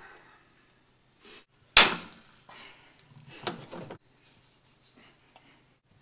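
Kitchen clatter at a frying pan: one sharp knock about two seconds in, more clatter a second and a half later, then faint ticking shakes of a salt shaker over the eggs.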